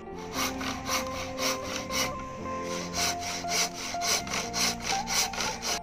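Hand saw cutting through a wooden board, a boat rib, in quick even strokes, about four a second. Background music plays underneath.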